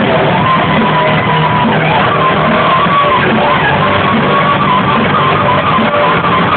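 Rock band playing live: an electric lead guitar holds long notes that slide up and down in pitch over the band, played with a mobile phone used as a slide.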